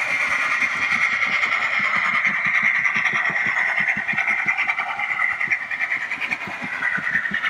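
OO gauge Hornby Lord Nelson Class model locomotive and its coaches running along the layout track: a steady high whir with a fast run of low clicks from the wheels.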